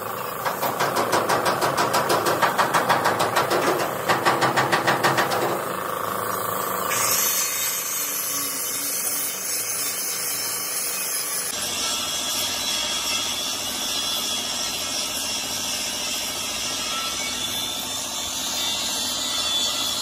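Compressed air hissing steadily from a gravity-feed spray gun spraying paint. For the first five seconds or so a rhythmic mechanical knocking, about four beats a second, runs over it.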